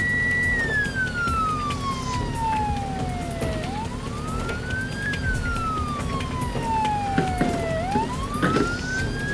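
Emergency-vehicle siren wailing, its pitch sliding slowly down and then swooping quickly back up, twice, over a low rumble.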